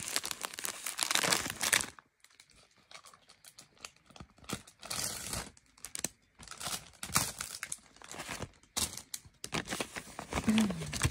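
Paper pattern sheets and plastic pouches of an embroidery kit rustling and crinkling as they are handled, steady for the first two seconds, then in short bursts.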